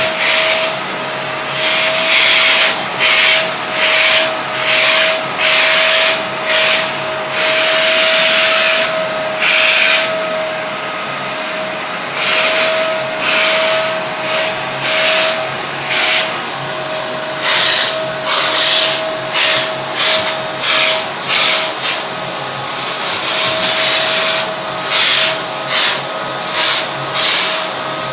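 Vacuum cleaner running with a steady motor whine, its rushing air hiss surging and dropping every second or so as the hose nozzle is worked over a dog's short coat.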